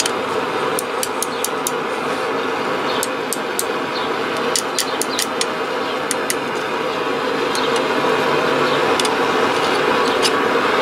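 Hammer tapping a steel flint-striker loop held in tongs on an anvil, in short runs of quick, sharp ringing strikes with pauses between them. Under it, a steady roar, typical of a propane forge burner running.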